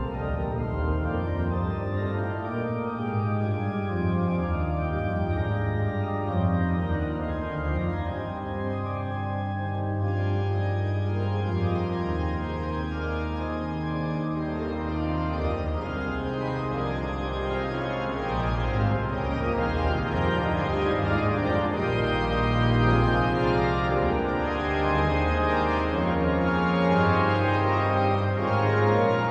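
The pipe organ of St Edmundsbury Cathedral playing a full, sustained passage, with deep bass notes held under moving chords.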